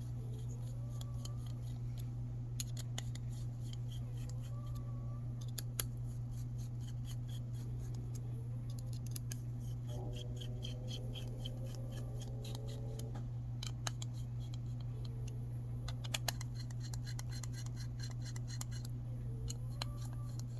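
Small clicks, ticks and scratches of a hex driver turning small screws into a 3D-printed plastic RC crawler rim, tightened in a star pattern, over a steady low hum.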